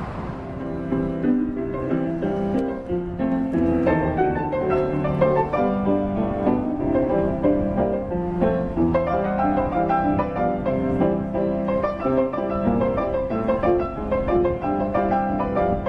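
Piano music with a classical character, laid over the video, playing a busy run of notes.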